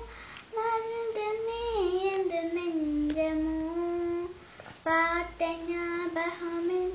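A young girl singing a Tamil song in sustained phrases, her voice holding notes and gliding between pitches, with brief pauses for breath just after the start and a little past halfway.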